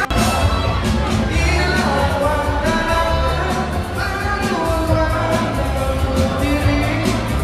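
A man singing through a microphone over an amplified pop backing track with a heavy bass and a steady beat.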